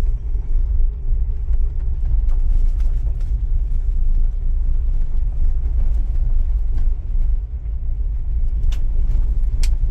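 A Jeep driving on a dirt road, heard from inside the cabin: a steady low rumble of engine and tyres. A couple of sharp clicks come near the end.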